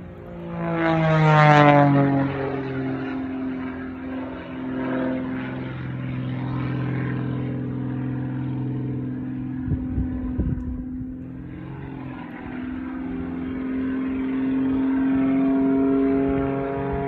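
Aerobatic propeller plane's piston engine droning overhead. It is loudest about a second in, as its pitch drops sharply, then runs steady and climbs in pitch again over the last few seconds. A few low thumps come around ten seconds in.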